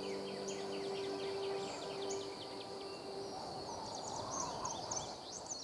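A last sustained music chord fades out over outdoor ambience. Many birds give quick, short chirps throughout, over a steady high buzz.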